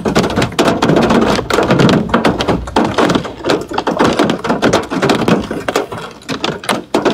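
Rapid, irregular knocks and rustling, close to the microphone.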